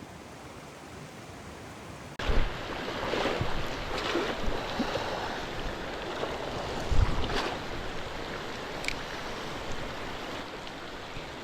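Rushing water of a fast mountain stream. It comes in abruptly about two seconds in, with a few short thumps on top.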